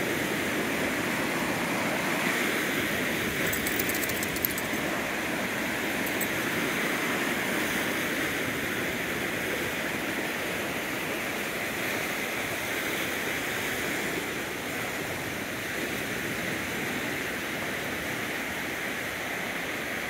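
Ocean surf washing onto a beach, a steady rushing noise.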